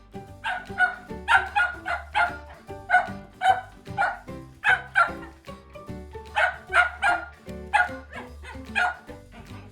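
Shetland sheepdog puppy barking over and over, about two or three short, high barks a second with a brief pause about halfway, the way he barks at the vacuum cleaner and floor wiper during cleaning.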